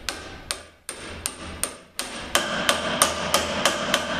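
Hammer tapping a bushing driver to drive a new bushing into a ZF 6HP26 transmission's clutch drum: about a dozen sharp metal-on-metal strikes. Past the halfway point the strikes come faster and louder, about three a second, with the drum and driver ringing between them.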